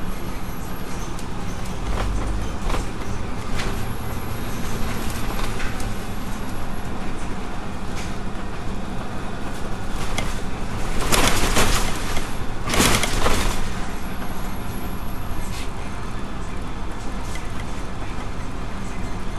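Running noise inside a moving double-decker bus: a steady engine drone with road noise and faint rattles. There are two louder rushes of noise about 11 and 13 seconds in.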